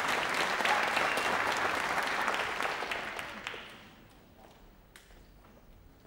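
Audience applauding a graduate whose name has just been called, dying away after about four seconds, with a few scattered claps near the end.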